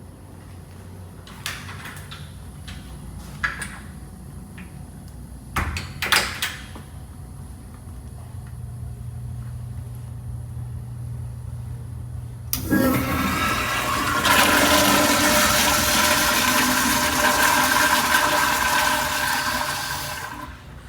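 A public-restroom fixture flushing. A few sharp clicks and knocks come first. About 12 seconds in, a loud rush of water starts, with faint whistling tones in it, and it tapers off after about eight seconds.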